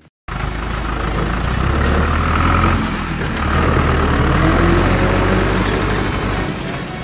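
Heavy truck engine running as the truck moves, a dubbed sound effect. It starts abruptly after a moment of silence, rises in pitch briefly around the middle and eases off near the end.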